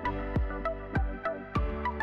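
Background music: an electronic track with a steady deep beat about every 0.6 s and a melody of short, clear notes.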